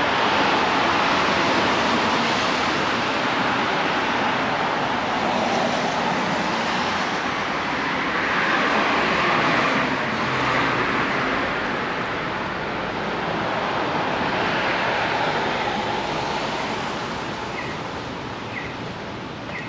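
Street traffic noise: car tyres hissing on a wet road, swelling and easing as vehicles pass.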